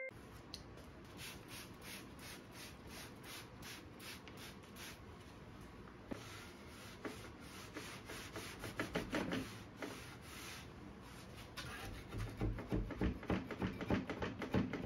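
Cloth rubbed hard over the wooden lid of a cedar chest in quick, repeated back-and-forth strokes, louder in a spell about halfway through. Near the end a metal putty knife scrapes stuck gum off the wood.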